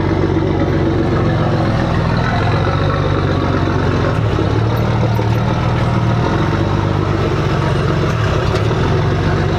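Vehicle engine running steadily, its note shifting slightly about four seconds in.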